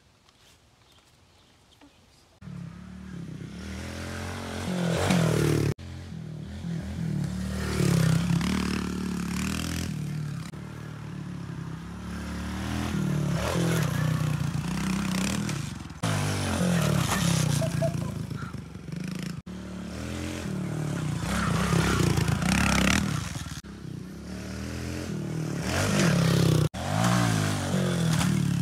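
Kawasaki KLX110 pit bike's four-stroke single-cylinder engine revving up and down as it is ridden on a dirt track. It starts after about two seconds of quiet and breaks off abruptly several times.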